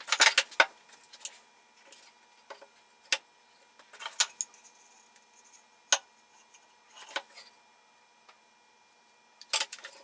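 Wooden drawer parts being taken apart and handled on a workbench for glue-up: light knocks and clacks of wood on wood, scattered over several seconds, with a cluster near the start and another near the end.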